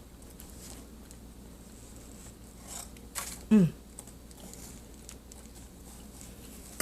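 Faint crackles and clicks of brittle food chunks being handled and broken, with a short falling vocal sound, like a brief 'mm', about three and a half seconds in.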